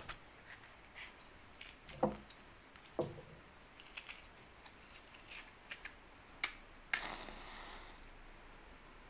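A matchbox being handled with small clicks and taps, then a match struck about seven seconds in, flaring with a brief hiss that fades over about a second. Two dull knocks come earlier, around two and three seconds in.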